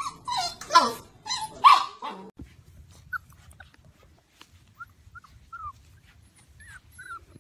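Puppies yelping and whining: a burst of loud, high yelps for about the first two seconds, then a string of short, faint falling squeaks and whimpers.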